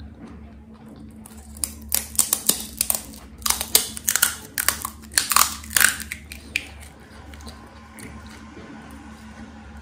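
Close-miked chewing of crisp pani puri: loud crunching and crackling from about two seconds in until about six seconds in, then quieter.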